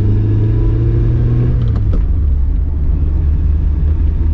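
Hillman Imp's rear-mounted 875 cc all-aluminium four-cylinder engine heard from inside the cabin, pulling with its note rising slightly. About two seconds in the note drops suddenly, with a couple of clicks, and settles to a steady lower rumble.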